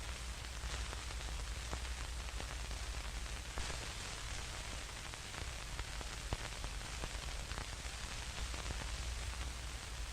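Old-film static sound effect: a steady hiss with scattered crackles and pops over a low, flickering rumble.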